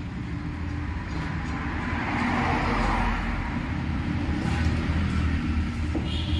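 Steady low rumble of road traffic, with a vehicle passing and swelling loudest about two to three seconds in.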